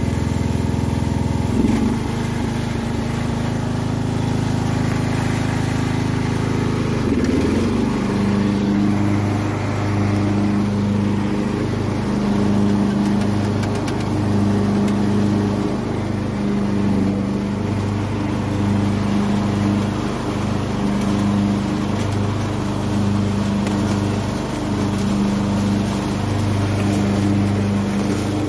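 Craftsman riding lawn mower's engine running, just after starting, on a test run of a newly refitted drive belt. Its pitch shifts twice in the first several seconds, then it runs steadily with a regular rise and fall in level about every couple of seconds.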